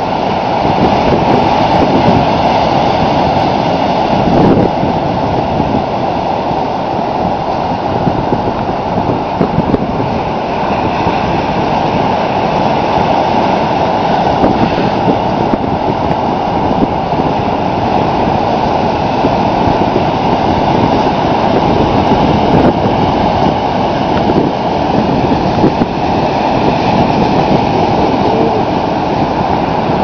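Ocean surf breaking on a sandy shore, waves about four feet high, heard as a loud, steady rushing wash that swells and eases gently.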